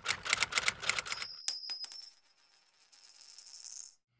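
Intro sound effects: a quick run of typewriter-like clicks, then about a second in a bright, high sparkling chime that rings on for about three seconds.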